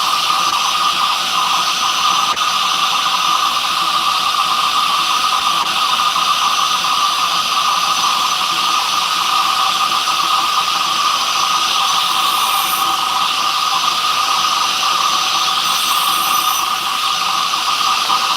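A power tool's motor running steadily at constant speed, a loud whine over a hiss, with no change in load.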